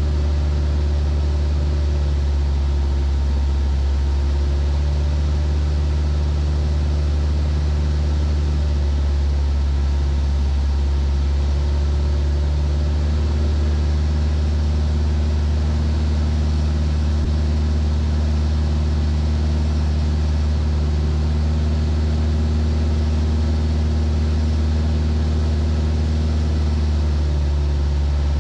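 Steady drone of a Van's RV-7's piston engine and propeller, heard from inside the cockpit in flight.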